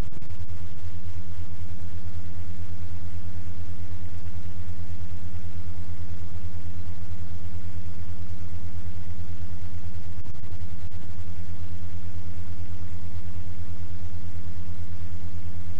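A loud, steady low hum with a fast, even throb and a few faint steady higher tones.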